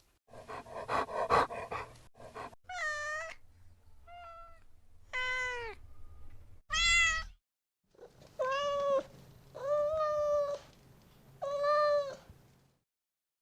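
Domestic cat meowing repeatedly, about seven separate meows, each under a second and arching in pitch, after a couple of seconds of a rough, rhythmic sound.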